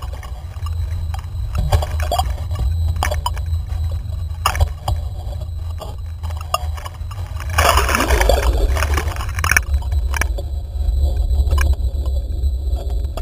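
Sea water sloshing and splashing over an action camera mounted low on a windsurf board as it dips under and breaks the surface. A steady low rumble runs under scattered knocks, with a louder rush of splashing about eight seconds in.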